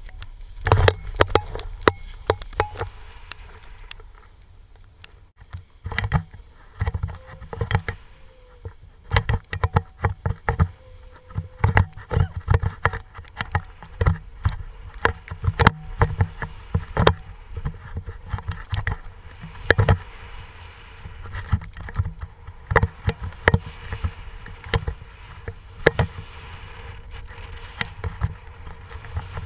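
Snowboard riding down through snow, heard on the rider's action camera: the board scraping and hissing over the snow, and wind rumbling on the microphone, with many sharp knocks and bumps along the way.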